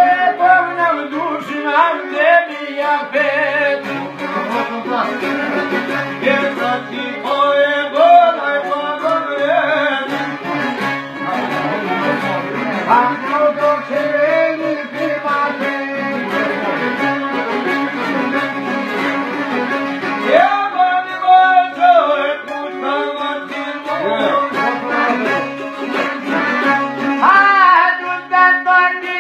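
Live Albanian folk song: a man's voice singing in long, gliding phrases over a long-necked string instrument that holds a steady low drone.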